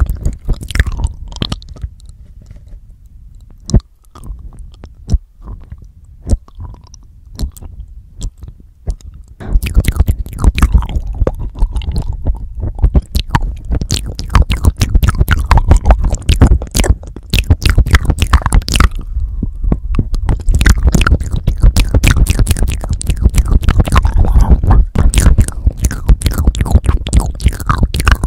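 Wet mouth sounds and mic licking pressed right against the stereo microphones of a handheld recorder: scattered lip clicks and smacks at first, then about a third of the way in a dense, continuous run of wet licking and smacking with low thumps from the lips and tongue on the capsules.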